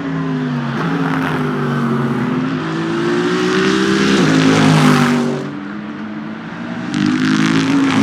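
Endurance race cars at speed on track, engine note rising and falling, loudest about five seconds in; a second car comes through near the end.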